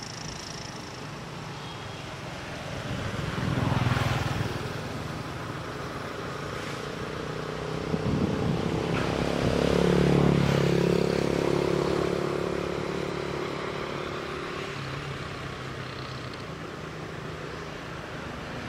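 Motor vehicle engines passing by: one swells and fades about four seconds in, then a second builds to its loudest near the middle and slowly dies away.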